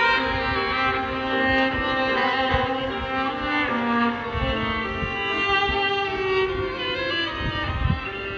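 A Samsung Galaxy A52 5G ringtone playing: a melodic instrumental tune with a string sound.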